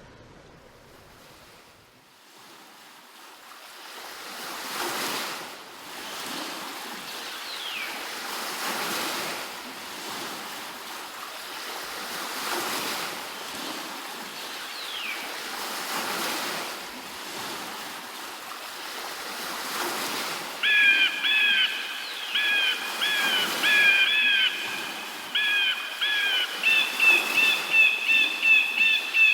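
Waterfall rushing, a steady noise of falling water that swells up a few seconds in. Twice early on a faint high whistle falls in pitch. In the last third a loud run of short, high pitched notes repeats rapidly.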